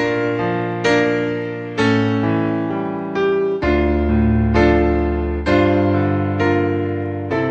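Background music: slow, sustained electric piano or keyboard chords, one struck about every second and left to fade.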